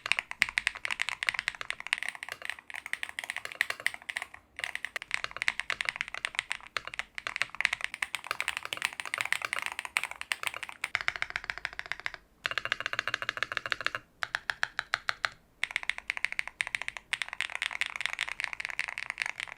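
Fast typing on a stock Qwertykeys HEX80 Hall effect keyboard, with Owlab Ti-HE magnetic switches and frosted PC keycaps on a gasket-mounted carbon fibre plate. It is a dense run of clean, clacky keystrokes broken by a few brief pauses.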